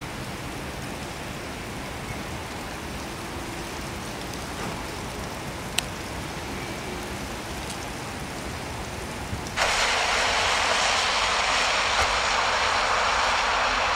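Outdoor rain ambience. A low, steady rumble of city noise gives way about two-thirds of the way in, suddenly, to a louder, even hiss of rain falling on wet pavement.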